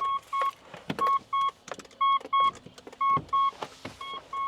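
Mitsubishi Pajero's reversing beeper with the car in reverse: short high beeps in pairs, about one pair a second, with a few faint knocks between them.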